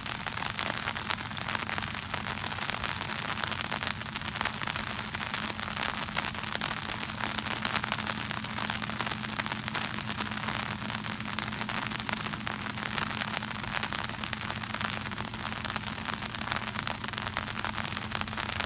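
Rain pattering on an umbrella held over the microphone: a dense, steady patter of drops, with a faint steady low hum underneath.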